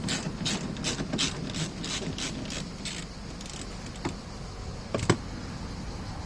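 Ratchet wrench clicking in a steady rhythm, about three clicks a second, while a 10 mm screw is undone; the clicking stops about three seconds in. Two sharp clicks follow, the second the loudest.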